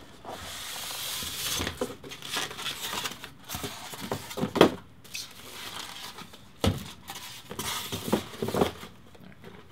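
Cardboard box and packing being handled as a car stereo is unboxed: rustling and sliding of cardboard and wrapping, with scattered knocks and taps, the sharpest about halfway through.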